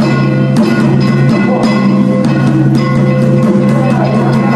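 Ceremonial music: drum and wood-block strikes over a sustained droning tone.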